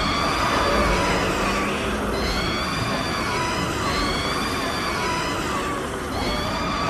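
King Ghidorah monster roar sound effect: a continuous screeching call with several high, wavering tones that sweep up and down over and over, above a low rumble.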